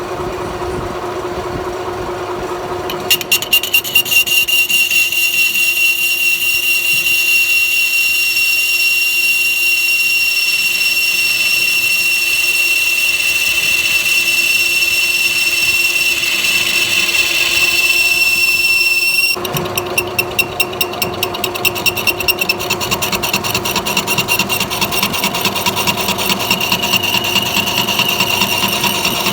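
Metal lathe running with the cutting tool on the workpiece. A steady high-pitched squeal comes in about three seconds in and cuts off about two-thirds of the way through, over a fast even pulsing machine noise.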